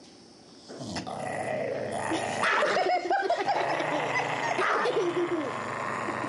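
A dog growling as it bites and chews at its own hind leg, starting about a second in, with rising and falling vocal sounds mixed in.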